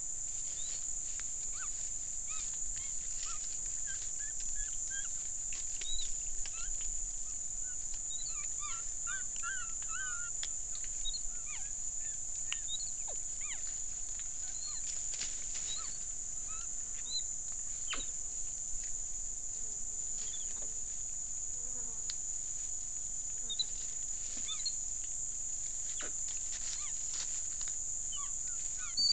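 Steady high-pitched drone of forest insects, with many short chirping calls scattered through it. Occasional soft rustles and clicks come from capuchin monkeys foraging in the dry leaf litter.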